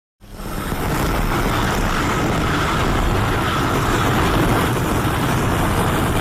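A homemade Godzilla sound effect: a steady, loud rushing noise with no clear pitch that fades in quickly after a moment of silence and holds evenly.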